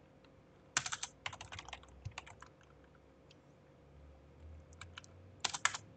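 Typing on a computer keyboard: a quick run of keystrokes about a second in, a few scattered taps, then another short burst near the end.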